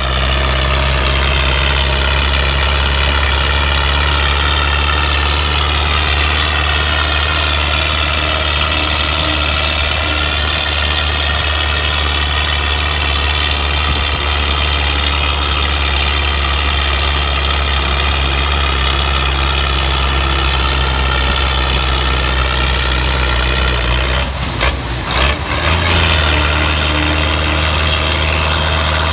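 Belarus 510 tractor's four-cylinder diesel engine running under heavy load, pulling a heavily loaded trolley in high gear. It is a steady low engine note that sags a little and recovers, with a brief rough break near the end, after which the note steps up slightly.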